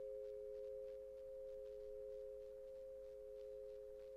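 Faint background drone of two steady pure tones held together without change, like a meditation music bed.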